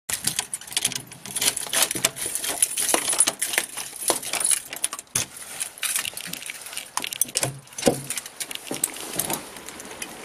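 Quick small metallic clicks and rattles from a metal lever door handle and its lock being worked as a door is opened, with a couple of duller knocks in the second half.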